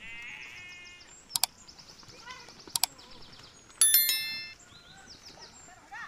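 A flock of sheep and goats bleating as it walks along the road, with a quavering bleat at the start. Two sharp clicks come about a second apart, and about four seconds in a loud ringing ding, the loudest sound, dies away.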